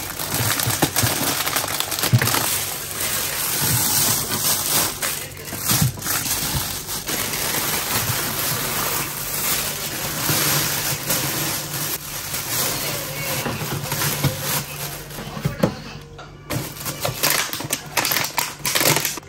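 Crackly rustling with many clicks and knocks, as of plastic-wrapped packages and containers being handled and moved about. It thins out near the end.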